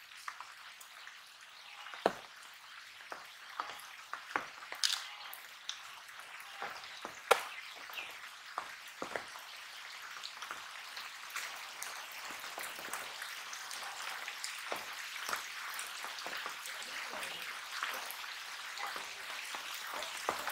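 Handling of a freshly caught fish being unhooked and put into a plastic basin of water: scattered small taps, clicks and drips, with sharper knocks about two and seven seconds in. Under them runs a steady hiss that grows slightly louder in the second half.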